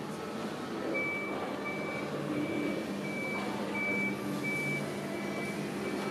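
A vehicle's reversing alarm beeping, one high-pitched tone repeating evenly about three times every two seconds, starting about a second in, over a steady low hum.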